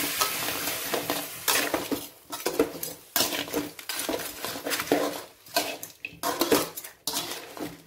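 A spatula scraping and knocking irregularly against a metal kadai as crab pieces and onions are stirred. The crab sizzles steadily for the first second or so before the clatter takes over.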